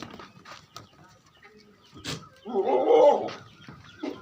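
A goat bleats once, loudly, a little past the middle, just after a sharp click. Light handling clicks and rustles run beneath.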